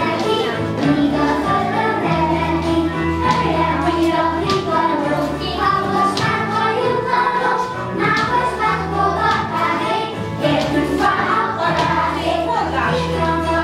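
A children's song with a choir of children singing over a steady beat, played as dance music.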